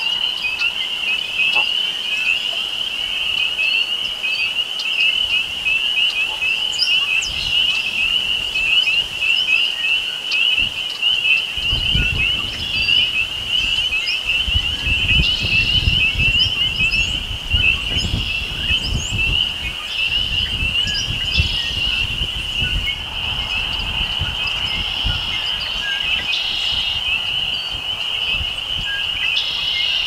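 Chorus of spring peepers: many high, short peeps overlapping into a continuous shrill wall of sound. Red-winged blackbirds sing now and then above it, and a low rumble comes through from about twelve seconds in until past the middle.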